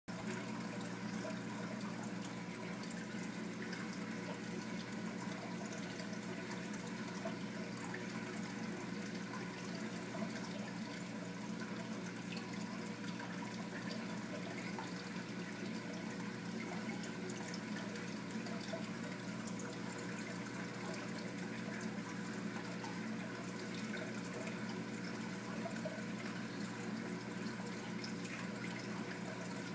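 Reef aquarium water circulating steadily, with a trickle of falling water over a low, steady pump hum.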